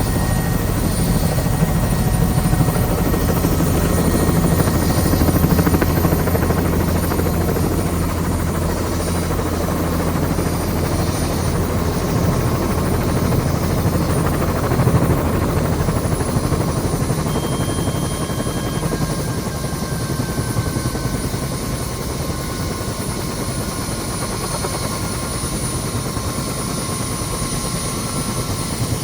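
Helicopter rotor and engine running steadily, heard from on board; the deep low drone weakens somewhat about halfway through.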